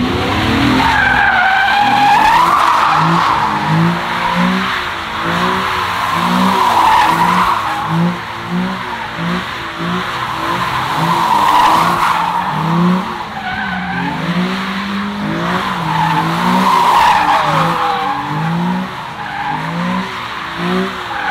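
A car doing donuts: its tyres squeal continuously as they spin, and the engine revs hard in short, repeated pulses.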